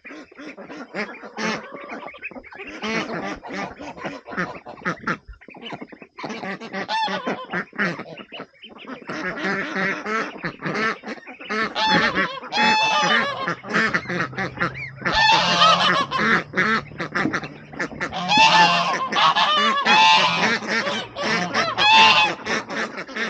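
A flock of domestic geese and ducks calling: many short, overlapping honks and quacks, louder in the second half.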